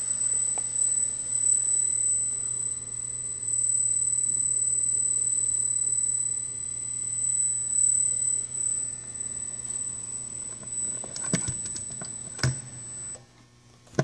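Electric gear motor of a Pier-Tech roll-off observatory roof running steadily as it drives the roof open, with a low hum and a thin steady high whine. Two clunks come near the end, and the motor stops as the roof reaches fully open.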